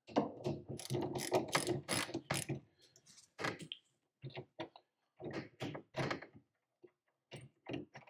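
Hand tool working the nuts on the studs that hold the aluminium dash former to the fibreglass dash, with clicking and metallic rattles in irregular bursts, busiest in the first couple of seconds and then in shorter groups.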